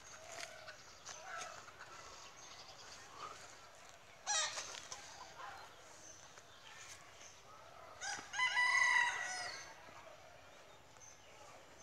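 A bird calling twice: a short call about four seconds in, then a longer call lasting about a second and a half, the loudest sound.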